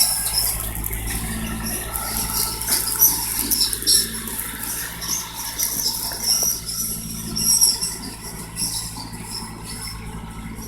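Engine-driven citrus pruning machine running with a steady low hum, with irregular short high-pitched sounds over it; it grows gradually fainter toward the end.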